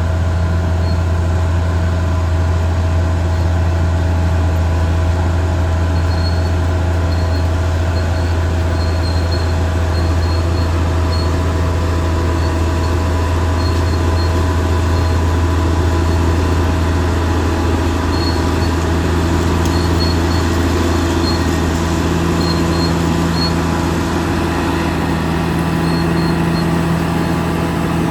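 Caterpillar D6R XL bulldozer's diesel engine running steadily and loudly, its note shifting slightly about two-thirds of the way through.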